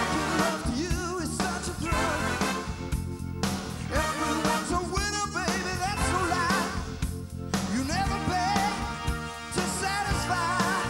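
Live rock band playing: a male singer sings into a microphone over the band, with an electric guitar, holding a wavering high note about halfway through.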